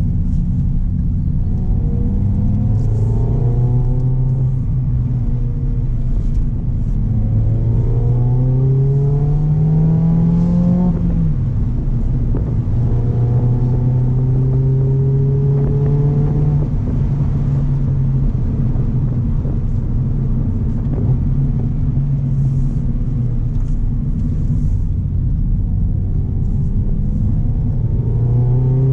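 Mazda MX-5 ND's 1.5-litre Skyactiv-G four-cylinder engine through a Goodwin Racing Super-Q twin-tip exhaust, heard from inside the cabin, revving up under load and easing off several times over a steady low road rumble. Its note climbs hardest around eight to eleven seconds in, then drops off suddenly.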